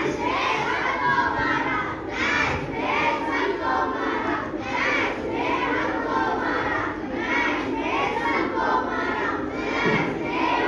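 Young performers shouting their lines together in loud, rhythmic bursts, over the noise of a large crowd of schoolchildren.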